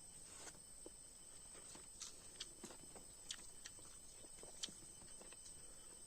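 Faint eating sounds: a scattering of soft mouth clicks and smacks, about half a dozen, over near silence with a faint steady high whine.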